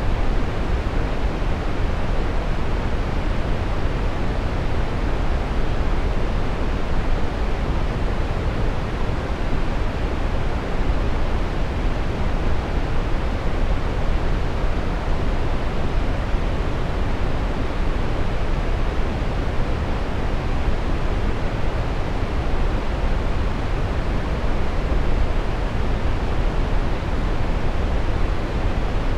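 Steady brown noise: an even, deep rushing hiss, strongest in the bass and rolling off in the highs, with no changes or events.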